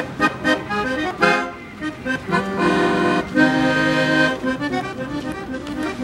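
Accordion playing a tune: short rhythmic chords at first, long held chords a little over two seconds in, then short rhythmic chords again.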